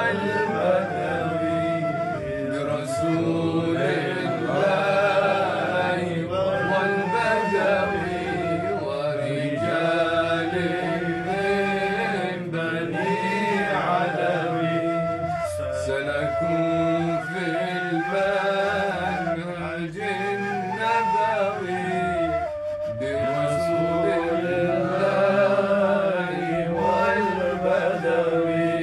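Arabic devotional song: a sung voice winding through an ornamented melody over a steady, held low drone.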